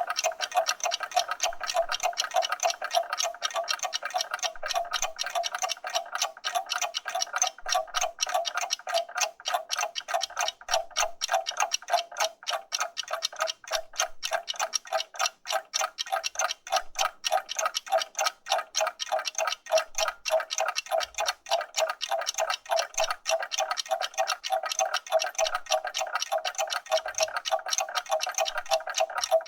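Several mechanical clocks ticking together, their ticks overlapping in a dense, uneven stream of clicks.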